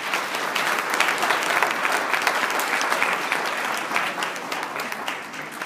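An audience applauding, many hands clapping together, dying away near the end.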